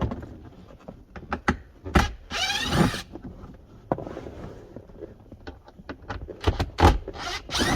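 Plastic dashboard cover under the glove box of a 2018 Jeep Compass being pried and pulled free by hand: scattered clicks and knocks, a creaking plastic squeal about two and a half seconds in, and a cluster of sharp snaps near the end.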